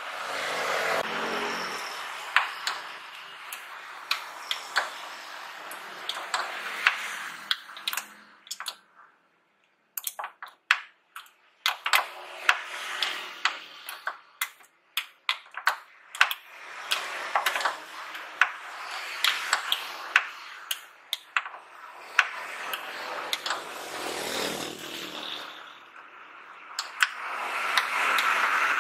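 Many sharp metallic clicks of an open-end wrench on the ball-stud mount of a Honda BR-V tailgate gas strut as it is turned. Knit work gloves rustle and rub close by, briefly louder near the end.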